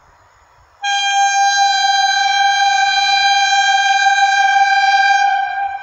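Horn of an approaching EN61 electric multiple unit sounding one long steady blast, starting abruptly about a second in and sagging slightly in pitch as it dies away near the end.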